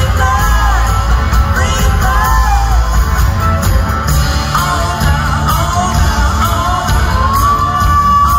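Live band music heard from the audience through the PA: a male and a female singer trading wailing vocal lines over heavy bass and drums, ending on a long held high note.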